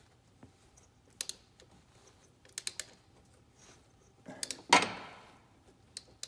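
Ratchet wrench with a 1-1/16 inch socket on an extension, clicking in short bursts as it works a cap on the engine loose. A louder metal clack with a brief rattle comes about four and a half seconds in.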